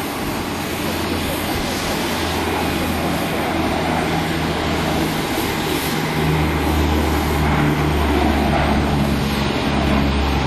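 Antonov An-12's four Ivchenko AI-20 turboprops at take-off power as the aircraft rolls, lifts off and climbs: a loud, steady drone with a low propeller hum that grows louder about six seconds in.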